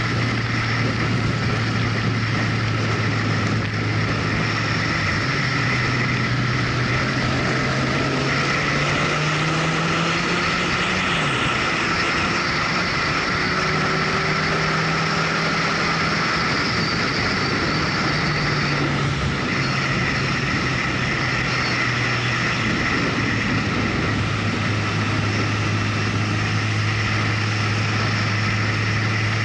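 Motorcycle engine running steadily on the move, heard from on board, its pitch rising and falling a few times with throttle changes through the bends. Steady wind rush over the microphone.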